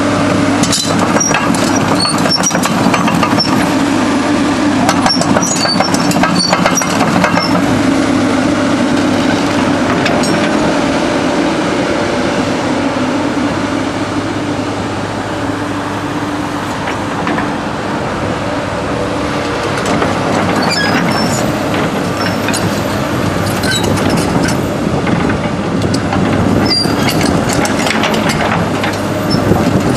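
A 2008 Komatsu PC200LC-8 excavator's 6.7-litre six-cylinder turbo diesel runs steadily. Metallic clanks and squeaks come and go, thickest at the start and again in the last ten seconds.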